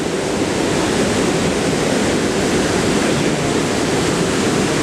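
Loud, steady rush of fast-flowing water.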